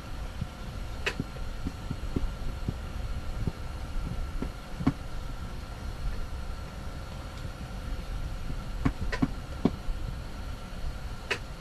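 Wind buffeting an ice-fishing tent: a low, uneven rumble under a faint steady hum, with scattered light ticks and taps.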